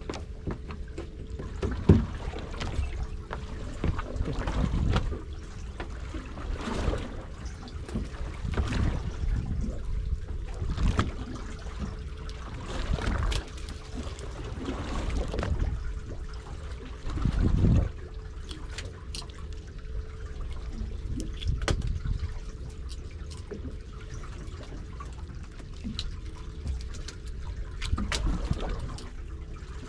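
Water trickling and lapping around a small fishing boat, with scattered knocks and handling noises from fish being unhooked on the deck. A faint steady hum runs underneath.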